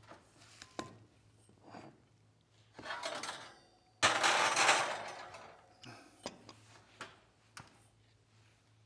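Pan handling at a wall oven: light clicks and knocks, then about four seconds in a sudden loud rush of noise that fades over a second or so.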